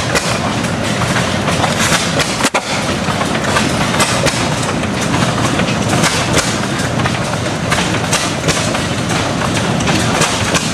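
Antique Armstrong 6 HP hit-and-miss gas engine running, its single cylinder firing only when the governor releases the latch from the push rod and coasting on its flywheels in between, with the clatter of the valve gear and governor.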